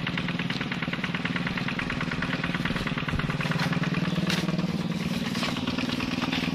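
Motorcycle engine running steadily: a low, even hum with a fast, regular ticking over it.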